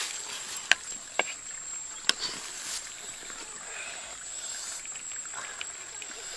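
A wooden ladle clicking a few times against a clay pot while chicken pieces are lifted out of the soup, with a steady high insect trill behind.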